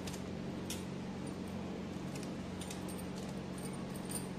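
A knife slicing bitter gourd into thick rounds: faint, irregular taps over a steady low hum.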